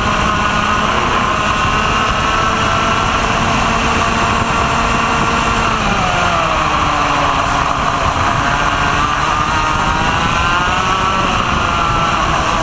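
Vortex ROK 125 cc two-stroke kart engine running hard on a lap, heard from onboard. Its pitch holds high, drops about six seconds in as the kart slows for a bend, then climbs steadily again as it accelerates out.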